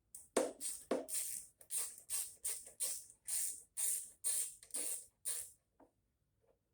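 Socket ratchet being worked back and forth to unscrew a carburetor mounting bolt, each back-swing a short buzz of clicks, about two a second. It stops about five and a half seconds in, once the bolt is loose.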